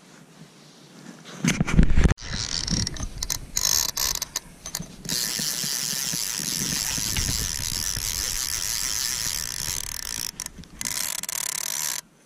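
Click-and-pawl fly reel buzzing as a hooked salmon pulls line off it, in stuttering spurts from about two seconds in, then one continuous run from about five seconds to near the end. There are a couple of loud thumps about one and a half seconds in.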